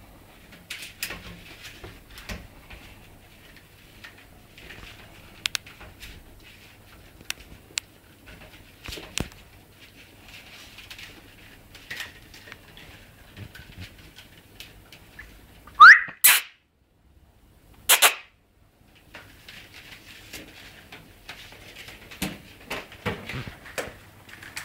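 A bull terrier puppy wrestling a wicker basket about on a tile floor: scattered light knocks, scrapes and rustles of wicker against tile. About sixteen seconds in comes a short, loud squeak rising in pitch, followed by a sharp crack.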